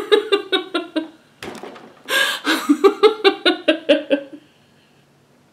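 A woman laughing helplessly in quick rhythmic bursts, with a breath drawn in between two runs of laughter. It dies away about four seconds in.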